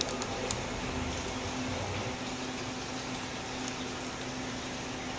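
Steady hum and airy hiss of aquarium equipment running, such as air pumps and filters, with a few faint clicks in the first half second.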